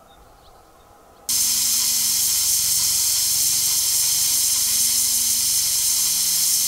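Pressure cooker releasing steam: a loud, steady hiss that starts suddenly about a second in and keeps going, the pressure being let off at the end of cooking.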